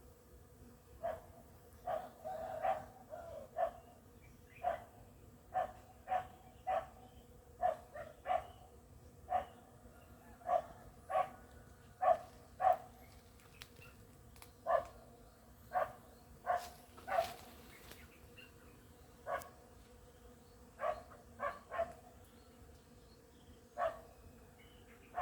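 A dog barking repeatedly in short, sharp barks, roughly one a second at an uneven pace, over a faint steady hum.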